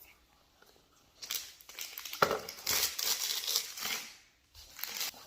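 Toy packaging crinkling and crumpling as it is handled, starting about a second in, with a sharp crackle a little past two seconds and dying away near the end.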